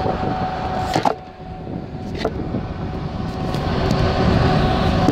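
Steady road and engine rumble inside a moving car's cabin, with a couple of sharp clicks about one and two seconds in.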